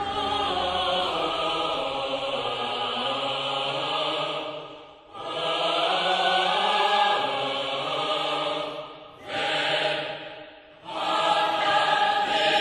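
Background music of chant-like, wordless choral voices holding long notes, dipping briefly about five and nine seconds in.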